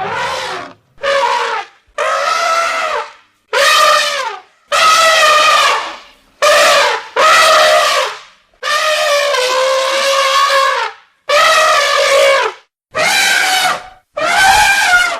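Elephant trumpeting: a run of about eleven loud, brassy calls, one after another with short gaps, most around a second long and one held for over two seconds, several dropping in pitch as they end.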